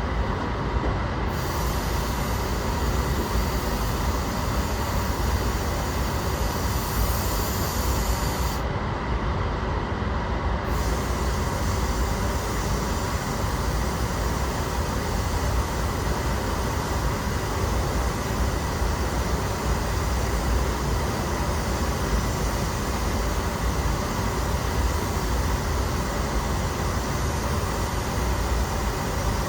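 Paint spray gun hissing as it sprays sealer, over the steady rumble of the paint booth's fans. The hiss starts about a second in, stops for about two seconds near nine seconds, then runs on.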